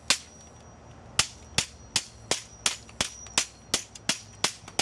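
Hammer blows on a printer's plastic housing and metal frame, breaking the plastic off. One blow at the start, then after a short pause a steady run of sharp strikes, about three a second.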